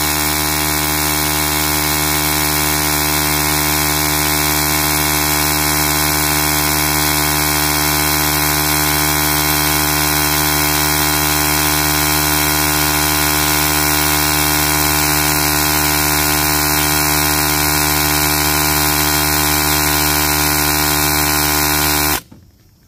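Small electric air pump salvaged from a jump-starter booster pack and rigged to a Skil cordless drill, running at a steady, unchanging pitch with a hum and buzz. It cuts off suddenly near the end.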